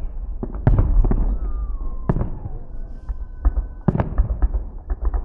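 Fireworks salute: shells bursting in loud booms, the biggest about a second, two seconds and four seconds in, with smaller cracks between and a low rumble carrying on underneath. A thin falling whistle can be heard between the bursts.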